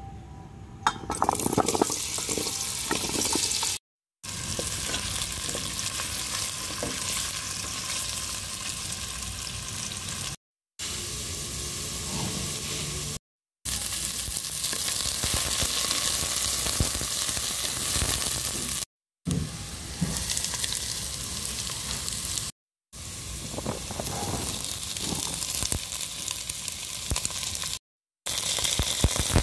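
Vegetables frying in hot oil in a stainless steel pan: a steady sizzle with some clacks and scrapes of stirring. The sound drops out briefly about six times at edits.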